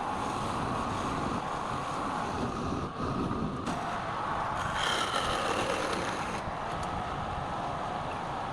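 A woodturning lathe running steadily, with a brief higher squeal about five seconds in.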